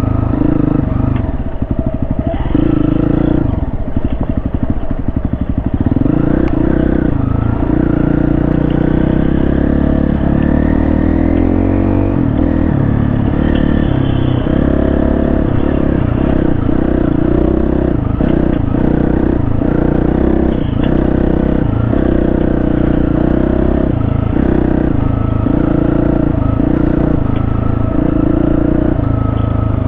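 Dual-sport motorcycle engine running under way, its pitch falling and rising with throttle and gear changes. It accelerates in one long rising pull about a third of the way through.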